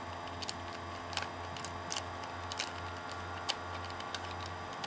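Irregular clicks of an old, rusty Rubik's cube's layers being turned by hand, about ten over a few seconds, over a steady low hum.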